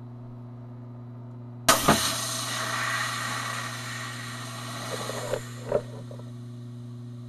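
A vintage Nippon Chemi-Con 50 V, 1000 µF electrolytic capacitor bursting as it is driven past its rating: a sudden bang and a second pop, then a loud hiss of venting, smoking electrolyte for about three seconds that trails off with a few smaller pops.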